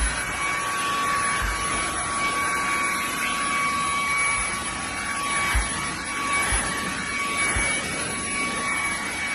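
Fanttik Slim V8 APEX cordless handheld vacuum running steadily, a constant rushing noise with a high motor whine, with a few soft low thumps.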